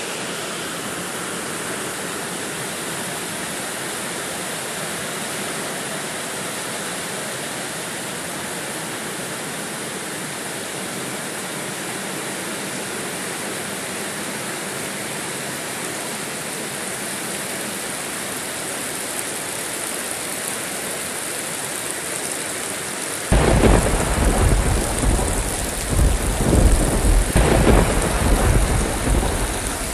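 Steady heavy rain hissing, then about three-quarters of the way through a loud rolling thunderclap breaks in suddenly and rumbles on in waves to the end.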